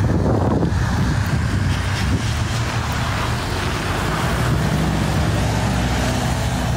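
Steady low drone of a large engine running, with wind noise over the phone's microphone.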